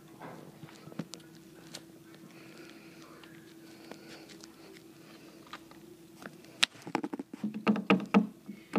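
A faint steady hum with a few scattered small clicks, then a quick run of loud knocks and taps from about seven seconds in.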